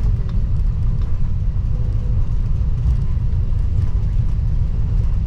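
Steady deep rumble inside an airliner cabin around takeoff, the noise of the jet's engines and airframe, with a few faint rattles over it.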